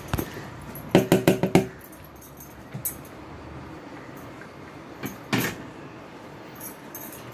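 Bowl knocked against the rim of a pressure cooker, a quick run of about five knocks that ring briefly, as the last of the soaked rice is shaken out. Another single knock follows a few seconds later.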